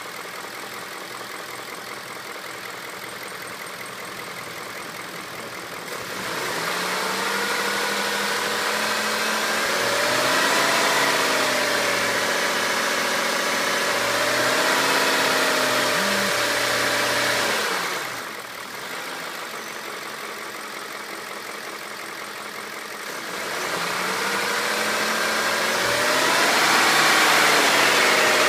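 BMW E39 M5's V8 engine idling, then raised to a steady higher rpm for about twelve seconds, let back down to idle, and raised and held again near the end. This is the vibration or noise the owner is trying to show.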